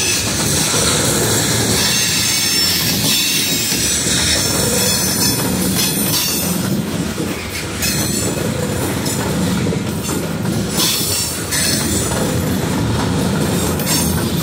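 Covered hopper cars of a Norfolk Southern freight train rolling past: a steady rumble and rattle of steel wheels on the rails, with faint high-pitched wheel squeal and a few louder clacks.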